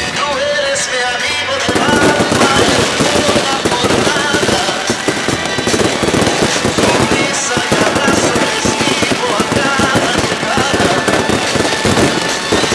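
Music gives way about two seconds in to fireworks going off in a dense, rapid crackle of bangs that carries on steadily.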